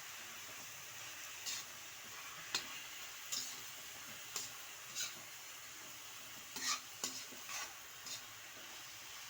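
Food sizzling in a frying pan or wok while being stir-fried, with a spatula scraping and clicking against the pan about nine times at irregular intervals over a steady hiss.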